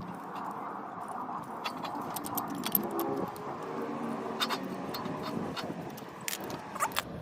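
Metal clicks and clinks from a brake caliper and a piston-compressor tool as the caliper pistons are pushed back. The clicks are scattered irregularly.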